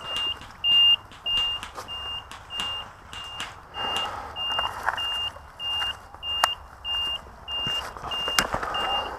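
Electronic beeper on an airsoft objective box sounding one high beep about twice a second, evenly spaced, with a few sharp clicks in between.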